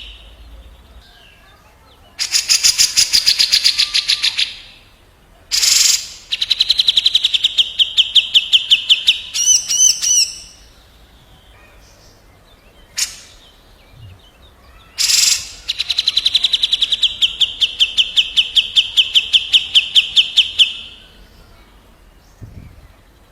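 Recorded song of a cucak jenggot (grey-cheeked bulbul) and a kapas tembak calling back and forth. Three long, fast, rolling trills are separated by a few short sharp notes and a brief warbled phrase, with pauses in between.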